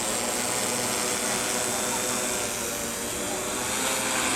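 DJI S800 hexacopter's six electric motors and propellers running steadily with a many-pitched whine over a rushing hiss.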